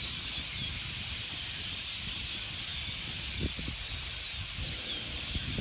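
A large flock of birds in the trees calling all at once: a dense, steady chorus of many overlapping high chirps and squeaks.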